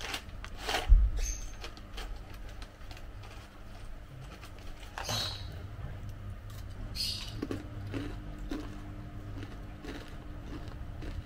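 A crinkly plastic snack bag being handled and banana chips being crunched, heard as a few separate crackles. A loud thump comes about a second in.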